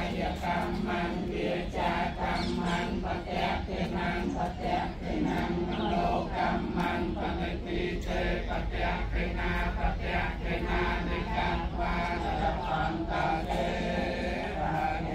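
A crowd of Buddhist monks and lay pilgrims chanting together in unison, many voices reciting in an even, syllable-by-syllable rhythm.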